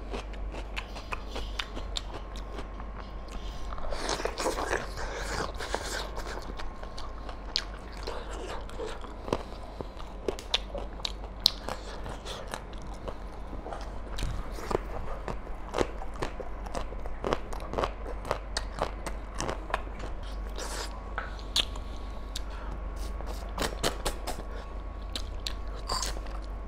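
Close-miked eating by hand: fingers working through mutton curry and rice, crunchy bites of raw green beans and chewing, with many short sharp clicks throughout.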